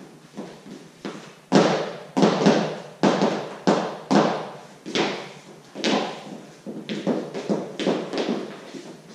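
Boots and shoes stepping, stomping and jumping on a wooden floor through a line-dance routine. An irregular string of thuds and taps, each with a short echo, gets louder about a second and a half in.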